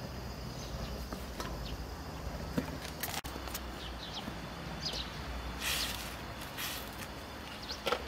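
Outdoor rural ambience: small birds chirping now and then over a low steady hum. Two short rustling noises come about two-thirds through, and a light knock near the end, as a pot and utensils are handled.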